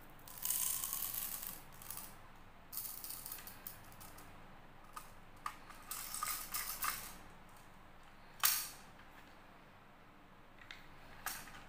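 Small hard candy balls rattling as they are tipped into a clear plastic tube, then plastic clicks and scraping as the tube and a candy jar are fitted into plastic toy candy holders, with one sharp click about eight and a half seconds in.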